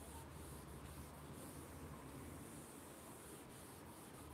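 Faint rubbing of a duster wiping marker off a whiteboard, the hiss coming and going with the strokes, over a low steady hum.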